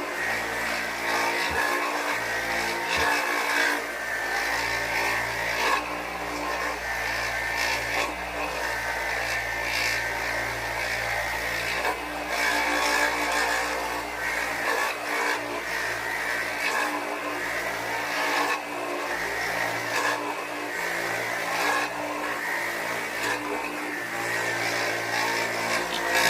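A carpet-cleaning machine's motor running steadily, with a constant hiss over its hum.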